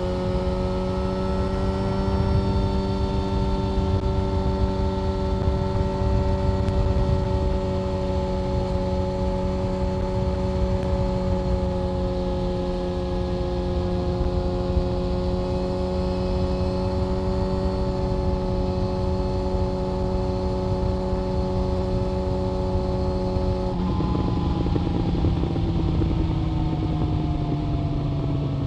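Yamaha FZ1 Fazer's inline-four engine running under way at a steady, fairly high pitch for most of the time. Near the end the pitch steps and falls steadily as the revs drop.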